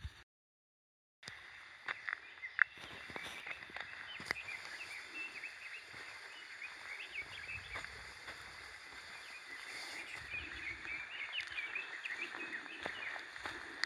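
Small wild birds chirping and twittering, many short calls overlapping, after about a second of silence. There are a few sharp clicks about two seconds in.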